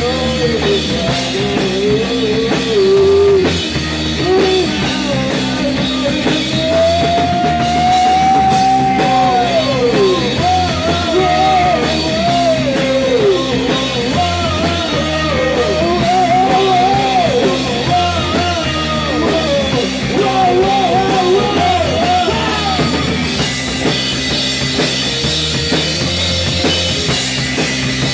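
A rock band playing live: electric guitar and drum kit under a male voice singing a wavering melody with one long held note. The sung line drops away in the last few seconds, leaving guitar and drums.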